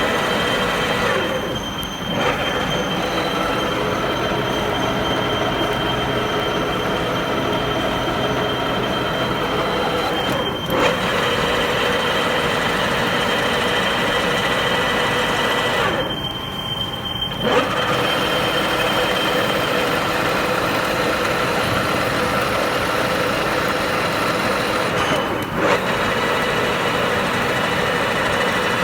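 A 16K20 screw-cutting lathe running during thread cutting: a steady metallic whine with several held tones, which drops away briefly four times.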